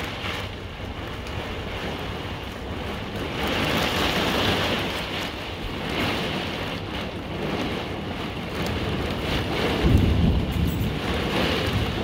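Heavy wind-driven rain of a severe thunderstorm beating on a camper's walls and window, heard from inside, swelling and easing with the gusts. A deep rumble about ten seconds in is the loudest moment.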